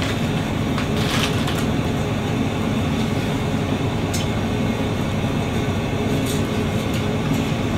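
Steady rumble of a semi-truck heard from inside its cab.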